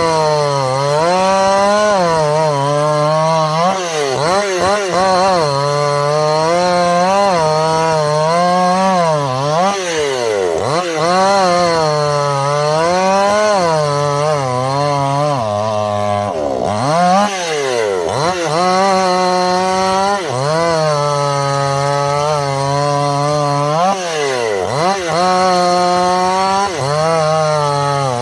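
Two-stroke chainsaw cutting through wood. The engine's pitch keeps sagging under load in the cut and rising again as it frees up, with one deeper sag past the middle.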